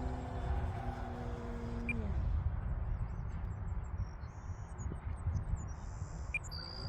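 A model airplane's motor drones steadily, then drops in pitch and fades out about two seconds in as the throttle comes back, under the low rumble of wind on the microphone. Birds chirp in the second half.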